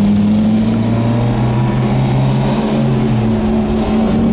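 1967 Volvo Amazon 122S wagon heard from inside the cabin while driving: its four-cylinder engine pulls steadily under road noise. A steady hum runs through it, which the owner traces to one of the front wheels.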